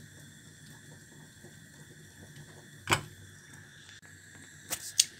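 A fork clicking against a nonstick frying pan while pricking raw sausages: a faint steady hiss with one sharp click about three seconds in and two quick ones near the end.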